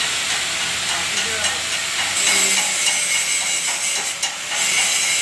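Steady, loud hiss of welding-shop background noise, with faint voices underneath.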